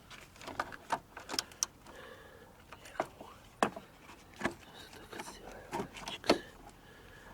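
Irregular metallic clicks and clinks of a spanner working the battery tray's bolts and nuts, with a few sharper knocks about three and a half and six seconds in.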